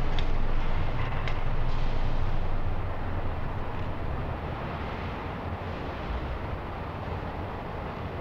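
Steady low rumble with hiss from an original-speed tape made in an elephant house, with a few faint knocks in the first second and a half and the level easing slightly after about three seconds. Any elephant infrasonic calls on the tape lie below human hearing at this speed.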